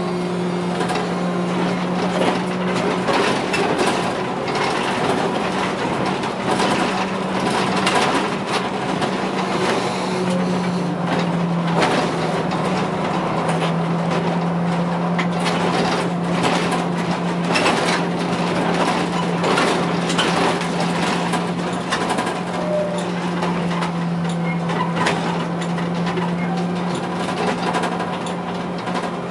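Cab interior of a Škoda 15TrM trolleybus on the move: a steady hum that steps slightly lower in pitch about halfway through, over tyre and road noise, with frequent rattles and knocks from the body.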